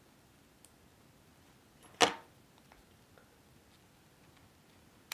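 One sharp click about two seconds in, as a SIM card with an R-SIM interposer is fitted into a small metal iPhone SIM tray; otherwise only faint handling sounds.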